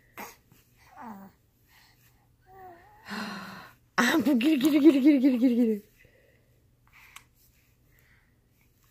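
A woman's playful, wavering voice without words, held for about two seconds in the middle, just after a breathy exhale. Earlier there are a few short, soft, higher-pitched baby coos.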